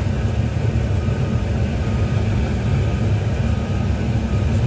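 Excavator's diesel engine running steadily, a loud low rumble with a faint steady whine above it.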